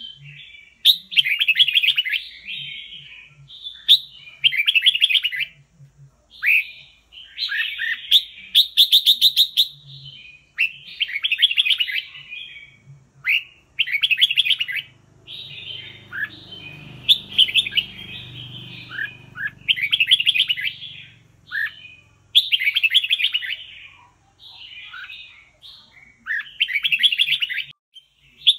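Red-whiskered bulbul singing: short, loud chattering phrases about a second long, each a quick run of notes, repeated every second or two.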